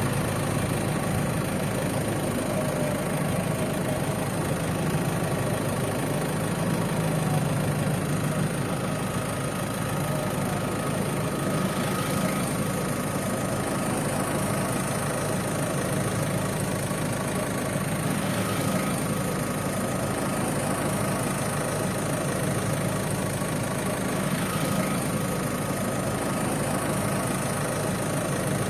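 Toyota HiAce van engine idling steadily, with no revving.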